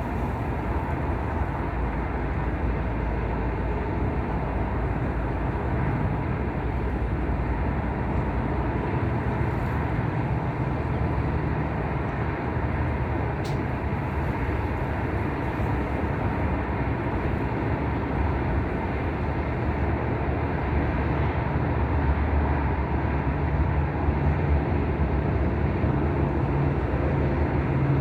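Steady wind noise buffeting the microphone on a windy day. A low steady hum grows louder near the end.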